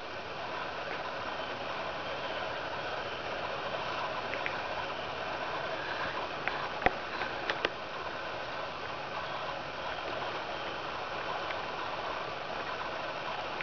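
Steady engine-like hum, with a few sharp clicks about halfway through.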